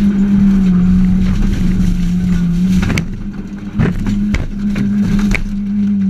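Peugeot 206's 1.6-litre 16-valve four-cylinder rally engine running hard at high revs, heard inside the cabin. Over the last couple of seconds there are about four sharp knocks and bangs as the car goes off the road in the crash.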